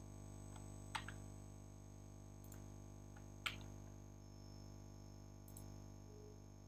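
Near silence with a steady low hum of room tone, broken by two faint clicks about a second in and about three and a half seconds in: a computer keyboard and mouse being used.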